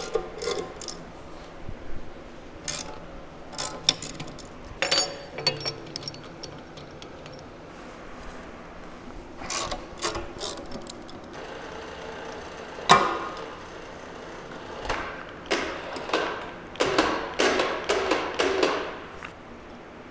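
Hand tools and clamping hardware clinking and clanking against the cast-iron table and angle plates of a horizontal boring mill, as the finished workpiece's setup is taken apart. Scattered metal knocks and rattles, with one sharp clank about two-thirds of the way through and a quick run of clatters near the end.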